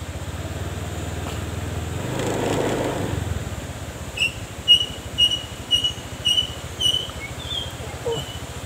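Honda Vario scooter engine running at low riding speed, swelling briefly about two seconds in. From about four seconds in, a bird chirps repeatedly, about two short high calls a second, until near the end.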